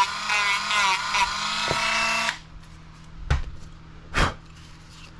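Dremel rotary tool with a sanding drum running, its whine wavering as it grinds burrs off a plastic RC buggy part, then cutting off about two seconds in. Two sharp knocks follow about a second apart as the tool is set down and the part handled.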